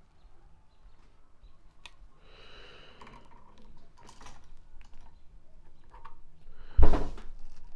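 Light clicks and scraping of hand tools working stripped 14-gauge copper wire as it is bent into a loop for a switch's screw terminal, with one loud knock near the end.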